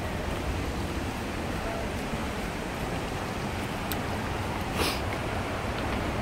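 Steady rushing roar of a waterfall, with one brief sharp rustle about five seconds in.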